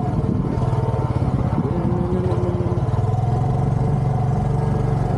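A motor vehicle's engine running at a steady speed, with a low, rapidly pulsing note.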